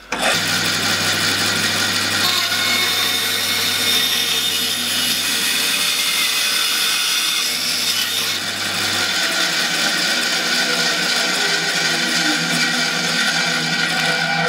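Bandsaw running and cutting through a wooden pen blank held in a sliding jig: a loud, steady sawing noise that starts suddenly, with a low hum beneath it that drops away about nine seconds in.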